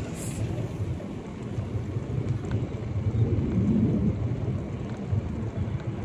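Strong wind buffeting the microphone: an uneven low rumble that gets louder around the middle.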